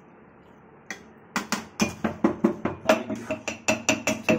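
A quick, even run of sharp, ringing taps, about five a second, starting after a second and a half of near quiet.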